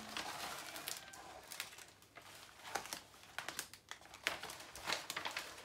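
Paper rustling and crinkling as a rolled diamond-painting canvas and its protective cover paper are handled and pressed flat, with a few sharp crackles in the second half.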